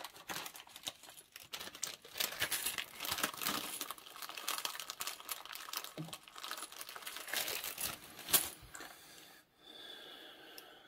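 Hands rummaging through loose plastic LEGO pieces: a busy run of small clicks and rattles, with one sharper click about eight seconds in, easing off to a softer rustle near the end.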